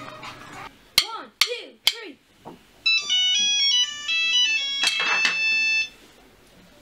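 Three quick drum hits on an electronic drum kit, each dropping in pitch. Then a mobile phone ringtone plays a high, stepping electronic melody for about three seconds.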